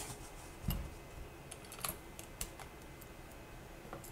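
Faint, scattered plastic clicks and taps from handling a mechanical keyboard and its parts, with a soft thump under a second in.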